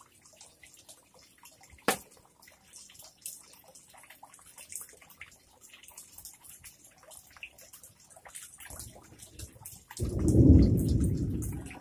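Light crackles and ticks of dry grass strands being handled and wrapped by hand, with one sharp click about two seconds in. About ten seconds in, a loud low rumble starts suddenly and fades away.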